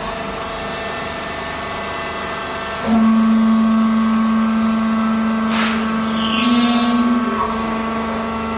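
Textile fiber baler's hydraulic power unit running with a steady motor hum. About three seconds in, the hum grows louder and deeper as the pump takes up load, with a brief hiss about halfway through.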